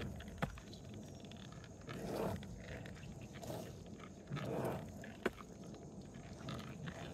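Skateboard rolling on wet asphalt, its trucks squeaking in three swells about a second apart as the rider carves, with two sharp clicks. The squeak comes from a loosely assembled setup without enough tightening or lubrication in the truck pivots.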